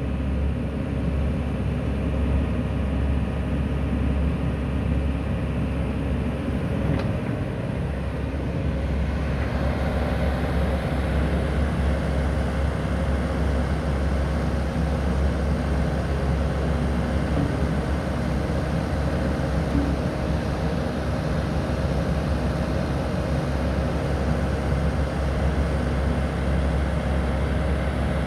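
Komatsu PC110 crawler excavator's diesel engine running steadily while its hydraulics swing the upper structure and move the boom. The sound grows a little louder and fuller about ten seconds in.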